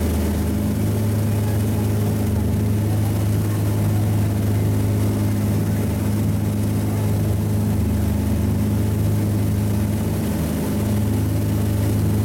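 A motorboat's engine running steadily while the boat is under way: a low, even hum with a steady hiss over it.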